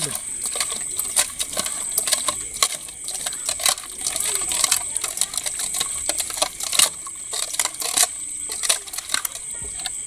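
Hands rubbing and swishing small cleaned fish in salted water in a stainless-steel bowl, scrubbing off the slime. Wet squelching and sloshing with many irregular sharp clicks as fish and fingers knock against the steel.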